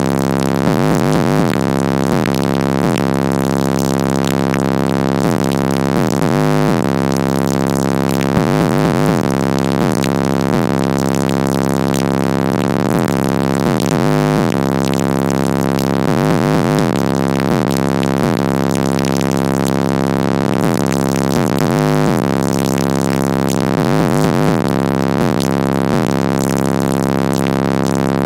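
Loud bass-heavy music played through a car stereo's four Incriminator Audio Death Penalty 18-inch subwoofers, heard inside the car's cabin, with deep bass tones dominating.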